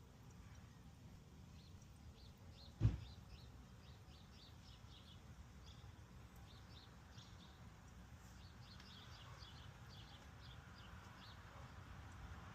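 Birds chirping faintly with many short calls over a low steady background rumble, and a single sharp knock about three seconds in.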